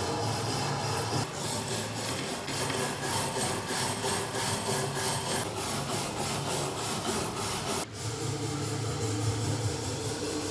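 Hand wire brush scrubbing rust off a steel kukri blade in quick, even back-and-forth strokes, with a short break about eight seconds in.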